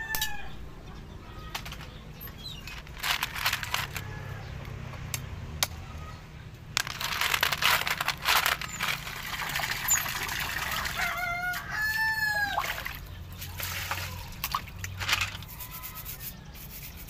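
Sharp knocks of a bolo knife chopping the tips off horn snails on a wooden block, and snail shells clattering in a metal bowl. A rooster crows once about two-thirds of the way in.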